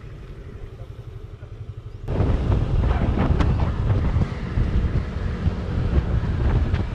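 Low motorcycle engine rumble, then about two seconds in a sudden jump to loud wind buffeting on the camera microphone over the engine, as when riding at speed.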